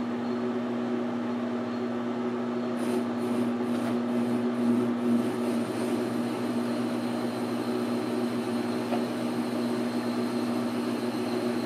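Precision Matthews 12x36 metal lathe running at 135 RPM on power feed while a high-speed-steel parting blade cuts into a steel bar. The sound is a steady machine hum with a constant tone.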